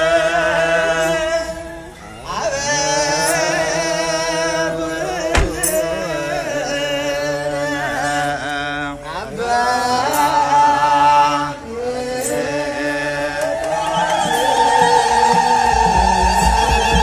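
Several voices singing a slow church chant in long, wavering held notes. A single sharp knock comes about five seconds in, and near the end a low, even beat joins the singing.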